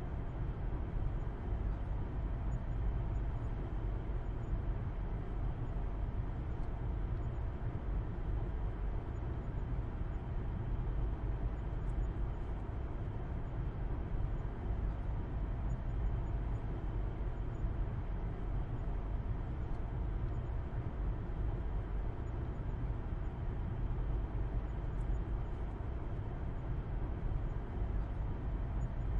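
Car being driven at a steady speed, heard from inside the cabin: an unbroken low hum and rumble of engine and road noise.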